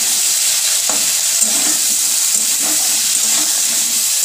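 Crab pieces coated in salt and turmeric sizzling steadily as they fry in oil in a black kadai, with a metal spatula stirring them and scraping the pan now and then.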